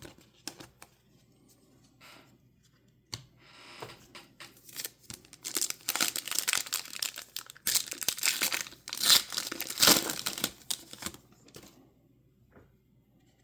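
A trading card pack's foil wrapper being torn open and crinkled, with a few light clicks of card handling first. The tearing and crinkling starts about three seconds in, is loudest for the middle several seconds and stops near the end.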